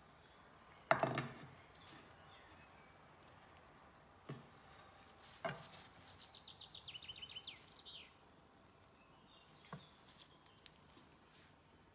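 Chef's knife slicing seared steak and knocking on an end-grain wooden cutting board: a few sharp knocks, the loudest about a second in, over quiet background noise.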